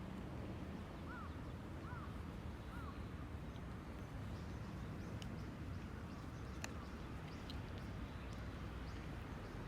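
Outdoor ambience with a steady low rumble, over which a bird gives three short calls, each rising and falling in pitch, about a second apart in the first few seconds. A couple of faint clicks follow later.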